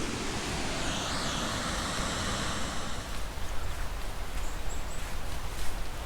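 Steady rushing noise of a waterfall in the gorge, which thins out about halfway through as irregular footsteps on a trail begin.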